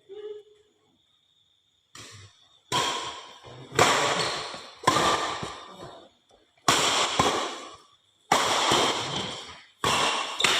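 A series of six sharp bangs about a second or so apart, each ringing out and fading over about a second.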